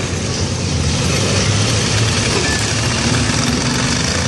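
Demolition derby cars' engines running in the arena, a loud steady din with an engine revving up and down about halfway through.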